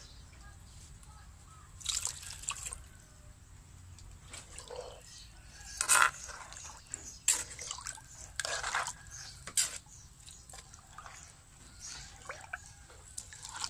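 A metal spoon stirring water into pounded rice-field crabs in a clay mortar, to draw out the crab juice: liquid sloshing and dripping, with a few sharp clinks and scrapes of the spoon against the mortar.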